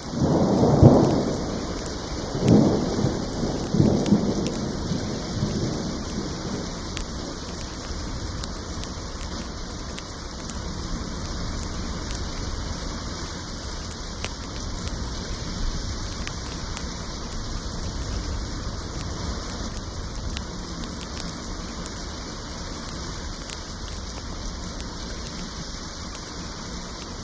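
Thunder rumbling in three rolls over the first few seconds, the first the loudest, over steady rain that keeps falling after the thunder fades.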